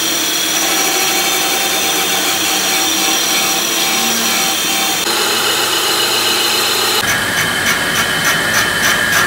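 Metalworking machine running in a workshop, loud and steady with a high whine and hiss. The sound changes abruptly about five seconds in and again about seven seconds in. From then on it has a regular beat about twice a second.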